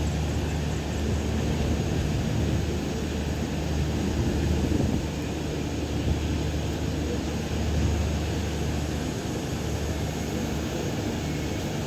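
Passenger train running steadily, heard from inside the coach: a continuous low rumble with wheel and rail noise.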